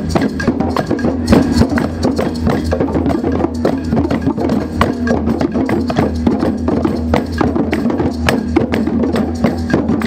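Percussion music: fast, dense hand drumming with sharp woody clicks over a steady low tone.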